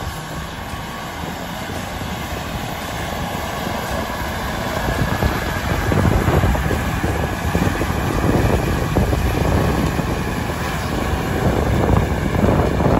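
Tractor engine running as it pulls a Horizon DSX 60-18 direct drill across a field, getting louder from about five seconds in as it comes close and passes.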